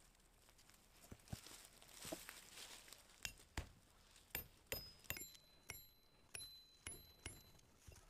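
A quiet run of light, sharp clicks and taps, sparse at first, then about three a second from the middle on, some with a short high ping like small hard objects clinking.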